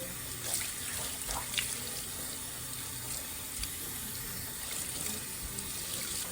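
Tap water running steadily into a sink, splashing as a wig is rinsed under the stream, with a few small splashes and knocks.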